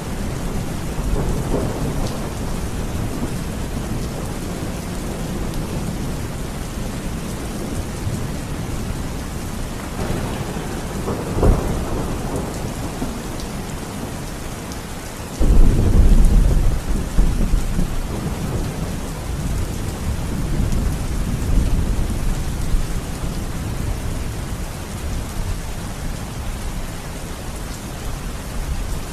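Steady heavy rain with thunder: a sharp crack of thunder about eleven seconds in, then a loud, deep rumble of thunder that starts suddenly about halfway through and rolls on for several seconds, slowly fading under the rain.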